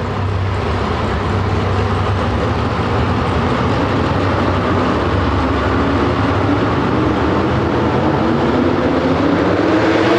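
Pro Stock four-wheel-drive pulling truck's engine running at full throttle under heavy load as it drags the sled, a loud steady drone whose pitch climbs over the last couple of seconds.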